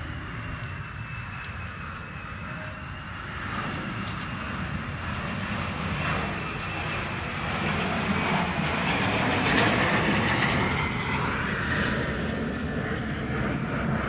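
Airplane flying overhead: its engine noise swells gradually to a peak about ten seconds in, then begins to ease. A thin whine slides slowly down in pitch as it passes.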